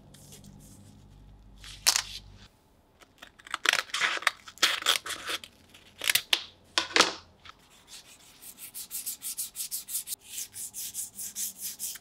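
Scissors cutting a sheet of 800-grit sandpaper in several irregular snips and crackles. This is followed from about two-thirds of the way in by rapid, even back-and-forth sanding strokes, about five a second, of a red plastic Swiss Army knife handle scale on the abrasive.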